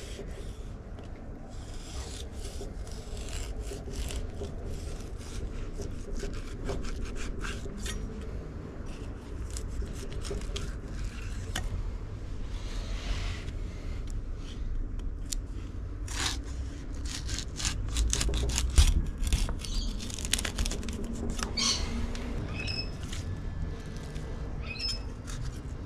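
Chef's knife sawing through raw tuna flesh on a wooden cutting board: the blade rubs and scrapes, with many scattered sharp clicks and taps.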